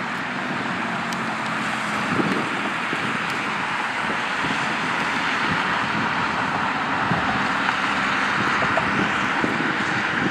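Jet airliner's engines at takeoff power as it lifts off and climbs away: a steady rushing noise that grows slightly louder, with wind buffeting the microphone.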